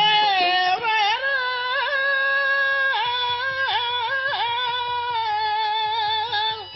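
A voice singing a burrakatha melody in long held notes that dip and slide several times, stopping near the end.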